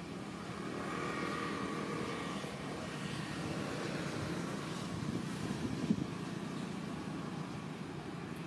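Steady low rumble of distant engine noise, with one brief knock about six seconds in.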